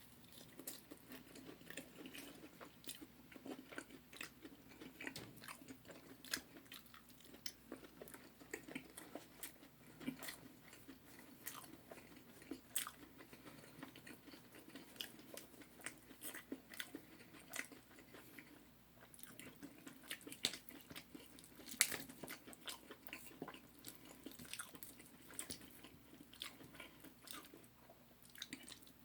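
Close-up chewing and crunching of crispy Korean fried chicken: a steady run of small crisp crunches and mouth smacks, with a short lull a little past the middle and one louder crunch soon after.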